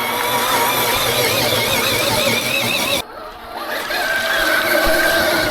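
RC car's motor and gear drive whining, its pitch wavering up and down with the throttle, easing off briefly about three seconds in before picking up again.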